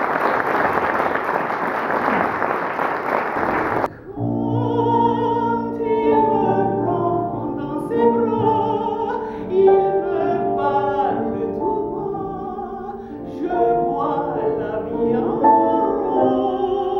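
Audience applauding for about four seconds. It cuts off abruptly to a woman singing operatically with a wide vibrato, accompanied on a grand piano.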